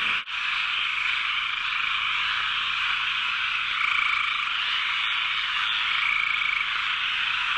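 A dense chorus of frogs croaking, a continuous wall of calls that cuts out for an instant about a quarter second in.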